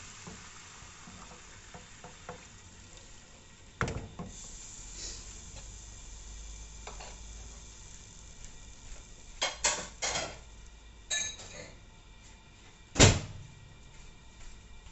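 Scattered knocks and clinks of a wooden spoon and cookware around a frying pan on a gas hob, the loudest about thirteen seconds in, over a faint hiss from the pan that fades in the first second or so.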